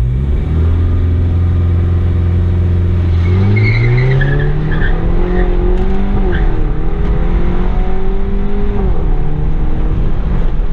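BMW F30 320i's B48 turbocharged four-cylinder engine held at launch-control revs for about three seconds, then the launch: the engine note climbs as the car pulls away with the tyres squealing, and drops as it shifts up near the end.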